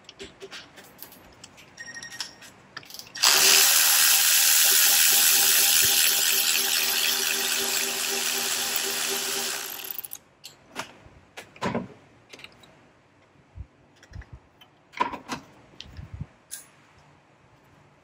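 Cordless electric ratchet running steadily for about seven seconds, starting about three seconds in, as it spins out an intake manifold bolt. A few light clicks of the tool being handled come before and after.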